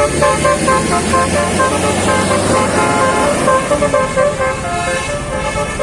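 Bus basuri telolet musical horn playing a rapid melody of short, changing notes, over a low rumble that fades about three seconds in.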